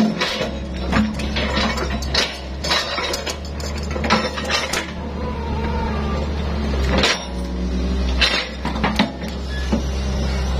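Excavator's diesel engine running steadily while its steel skeleton bucket scrapes the ground and picks up rosewood logs, with repeated metallic clanks and knocks as the logs strike the bucket.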